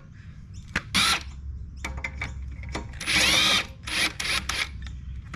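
Ryobi cordless driver spinning a socket on the centre bolt of a mower's blade carrier disc, undoing the bolt to take the disc off. It runs in short bursts: a brief one about a second in, a longer one past the middle, then two quick ones.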